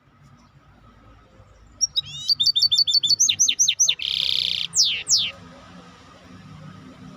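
A songbird singing one phrase of about three seconds, starting about two seconds in: a quick run of repeated chirping notes, a short buzzy trill, then two long falling whistled notes.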